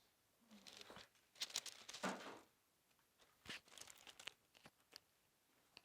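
Rustling and crinkling in irregular bursts, with a few sharp clicks, loudest about one and a half to two and a half seconds in.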